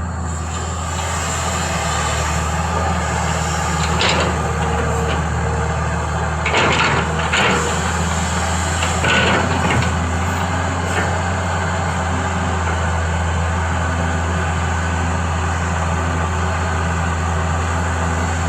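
Excavator's diesel engine running steadily under load, with several rough scraping knocks from the digging about a third and halfway through.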